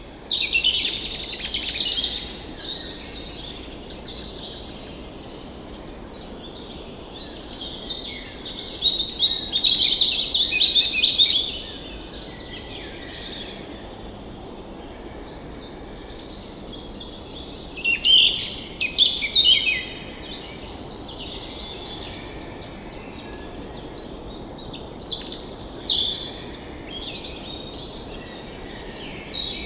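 Several songbirds chirping and trilling, loudest in bursts every several seconds, over a steady low rush of flowing stream water.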